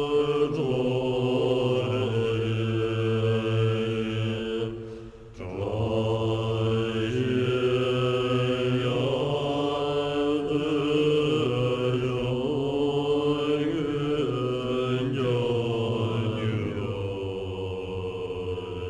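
Tibetan Buddhist monks chanting together in low, drawn-out tones, with a short break for breath about five seconds in.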